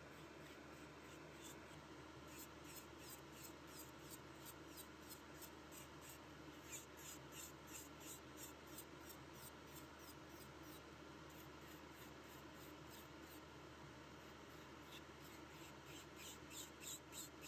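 Electric nail drill running quietly with a white cone bit, filing gel on the nail extensions: faint, rhythmic scraping strokes, about two to three a second, over a steady low hum.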